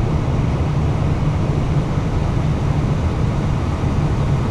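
Steady low rumble inside an Airbus A320 cockpit as the aircraft taxis on the ground, its engines at idle.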